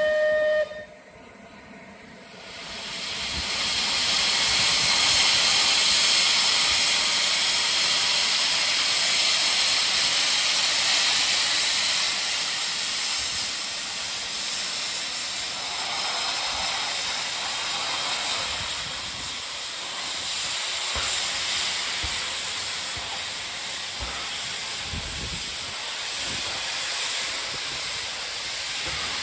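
Rebuilt Bulleid Battle of Britain class steam locomotive moving off: the tail of a short whistle in the first second, then a loud, steady hiss of steam blowing from the open cylinder drain cocks. The hiss builds over a couple of seconds and eases slightly after about twelve seconds.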